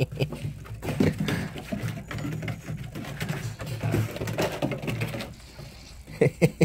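A person's low voice chuckling and murmuring softly, with no clear words.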